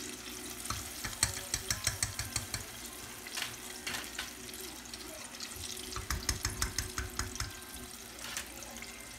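Chicken wings sizzling in hot oil in a Fry Daddy electric deep fryer, the bubbling slowed now that the batch is cooked through. Metal tongs click and tap in quick runs, about a second in and again around six seconds in, as wings are lifted out and tapped to drain.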